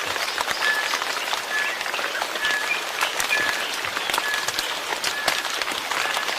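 Steady rain with many fine pattering drops, and a short high note recurring about once a second.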